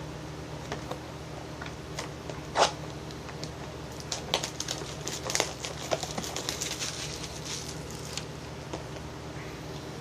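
Plastic wrapping on a trading-card blaster box crinkling and tearing as the box and its packs are opened, with a sharp snap about two and a half seconds in and a dense stretch of crackling in the middle.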